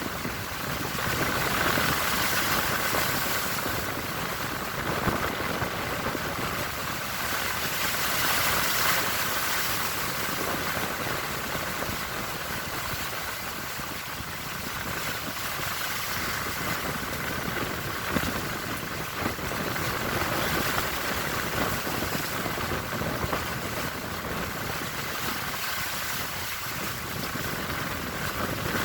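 Strong wind and sea waves: a steady rushing noise that swells and eases every several seconds.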